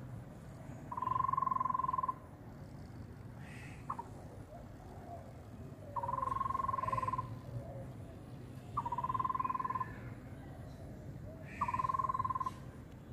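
A frog's trilling call, a rapid even trill at one steady pitch lasting about a second, given four times a few seconds apart over a steady low hum, with a short click in between.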